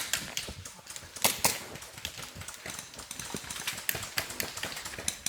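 Airsoft guns firing single shots on semi-auto: irregular sharp snaps and cracks.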